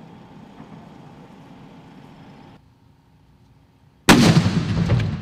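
A firework explodes: a sudden, very loud blast about four seconds in that stays loud for about a second, then dies away. Before it there is only faint outdoor background.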